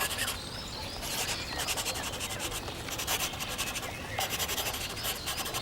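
Black marker tip rubbing and scratching across paper in a run of strokes with short pauses between them, as the outlines of a drawing are traced over bold.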